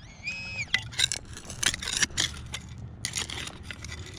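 Digging tool scraping and crunching through hard, stony river-bank ground in a run of short strokes, after a brief warbling metal-detector tone near the start.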